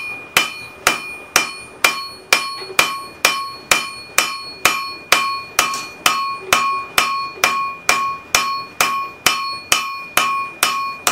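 Blacksmith's cross-peen hammer striking a hot railroad spike on the anvil, a little over two blows a second, each blow leaving the anvil ringing. The blows are spreading the spike's blade out into a tomahawk's fan shape.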